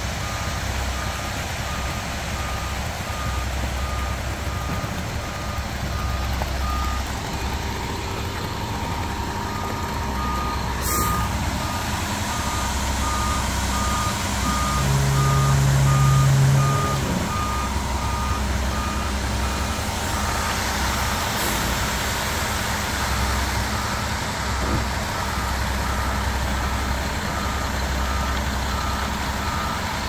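Front-discharge concrete mixer truck running with its engine rumbling steadily, and its backup alarm beeping in runs that stop and start. About halfway through, a deeper steady tone gets louder for about two seconds.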